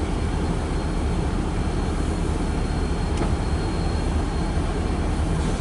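Steady low rumble of a car, heard from inside the cabin with a window rolled down, with a faint steady high whine over it.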